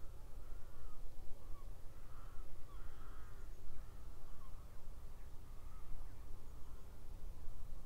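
Birds calling in a run of short arched calls, about one a second, that die away near the end, over a low steady rumble.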